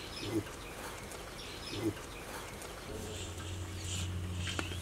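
Rural outdoor ambience: two short calls from farm animals, faint bird chirps, and a steady low hum that sets in about three seconds in.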